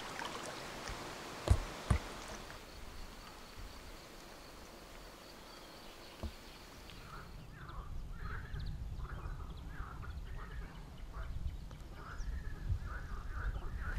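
Two sharp knocks about a second and a half in. From about halfway, a run of short quacking calls from ducks repeats roughly twice a second over wind rumbling on the microphone.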